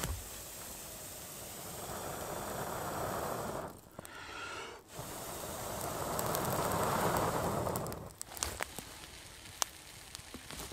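Two long breaths blown into the embers of a campfire to bring it to flame, each a rush of air that swells and fades, with a short pause between. A few light clicks follow near the end.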